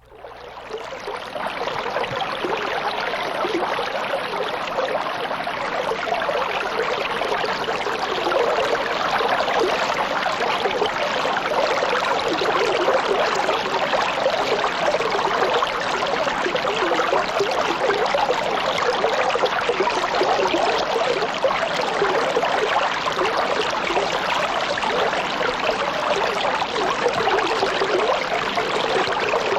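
Small garden fish-pond waterfall: water spilling and splashing continuously into the pond in a steady splashing rush that fades in over the first second or two.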